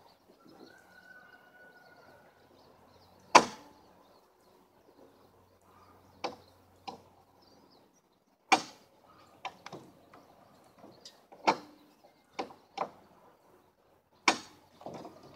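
A series of sharp, irregular knocks and clanks, about a dozen, from work on a wooden cabin and its trailer. The loudest comes about three seconds in, and they come closer together in the second half.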